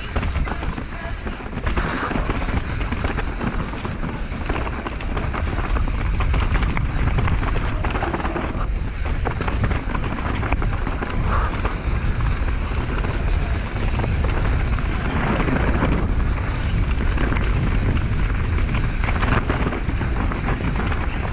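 Heavy wind buffeting a microphone at speed, mixed with the steady rattle and clatter of a downhill mountain bike running over rough dirt trail.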